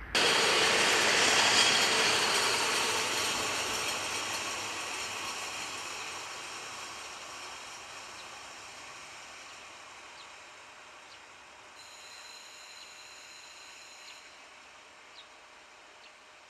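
KiHa 40 diesel railcar pulling away along the track, its engine and wheels on the rails loudest at first and then fading steadily as it draws off.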